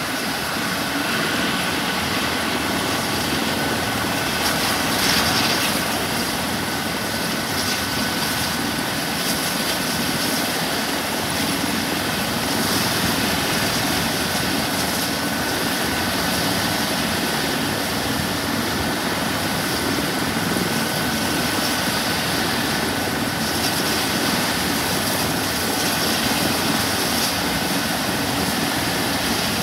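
Airbus EC135 rescue helicopter's twin turbine engines and rotor running steadily on the ground after landing, a constant rush with a thin, steady high whine.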